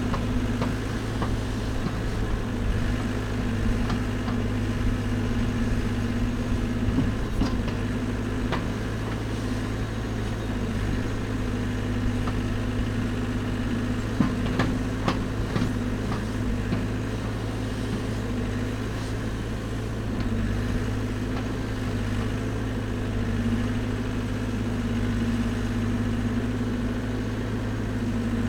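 Caterpillar backhoe loader's diesel engine running steadily while the backhoe arm digs soil, with a few sharp clicks and knocks now and then.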